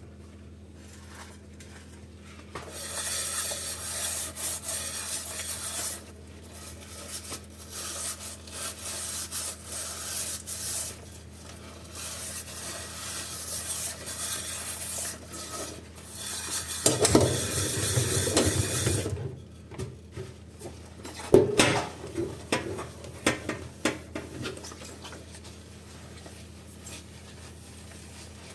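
Dishes being washed by hand in a sink: several stretches of water and scrubbing noise lasting a few seconds each, then a run of clinks and knocks as dishes are handled, the loudest about three-quarters of the way in.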